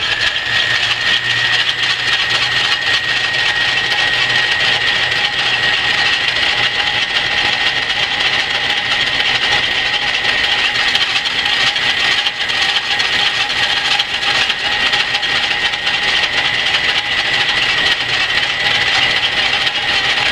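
Antique Rockford metal lathe running with a steel plate spinning in its four-jaw chuck: a steady mechanical whine over gear and drive noise.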